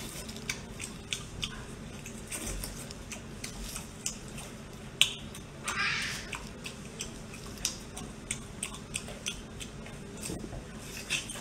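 Close-up mukbang eating sounds: lips smacking and sauce-coated squid or octopus squelching in plastic-gloved hands. They come as a string of sharp little wet clicks, with a longer wet burst about six seconds in.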